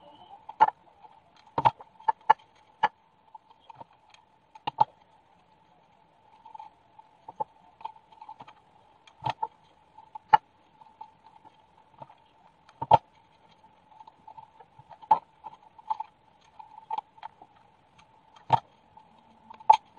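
Irregular clicks and taps of hands handling craft materials: glitter foam circles, a glass bottle and a hot glue gun set down and picked up. A faint steady high-pitched hum runs beneath.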